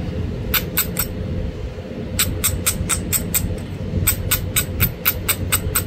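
Flintknapping on a coral spall: sharp stone-on-tool clicks, three near the start, then a quick run of about four or five clicks a second from about two seconds in, as the edge of the point is worked.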